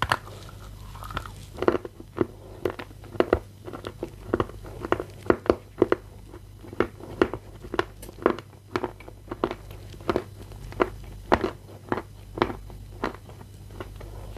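Close-miked chewing of a piece of Bashkir edible clay, the 'ryzhik' variety: a bite at the start, then crisp crunches at about two or three a second as it is chewed.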